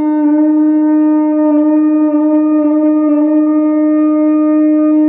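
A conch shell (shankh) blown in one long, steady note.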